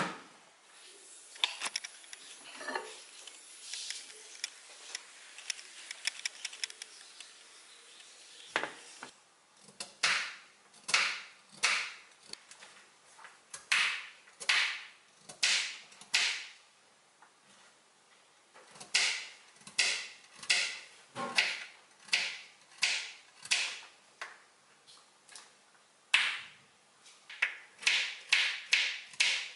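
Kitchen knife slicing a raw carrot into rounds on a cutting board: a crisp cut and knock on the board about once a second, starting about eight seconds in and coming quicker near the end.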